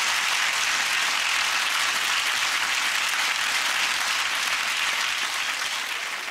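Studio audience applauding steadily, easing off near the end.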